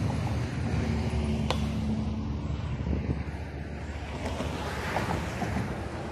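Wind noise on the microphone, with road traffic humming in the background.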